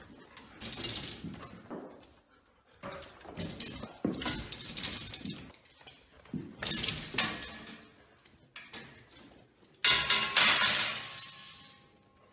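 Metal baby gate rattling and clanking in four bursts as dogs climb and jump against it, the last burst the loudest, with a metallic ring.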